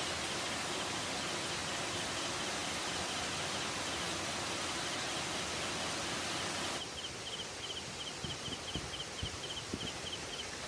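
A steady rushing hiss of outdoor noise that cuts off about seven seconds in, giving way to quieter outdoor background with a rapid, evenly repeated high chirping, a few a second, and a few soft low thumps.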